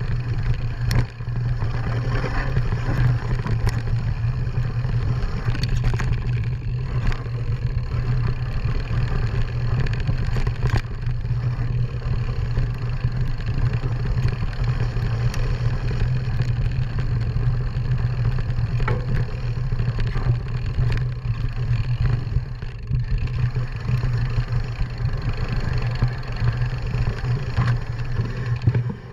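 Riding a bike along a rough woodland dirt trail, heard from a handlebar-mounted camera: a steady low drone with frequent rattles and knocks as the bike goes over the bumps.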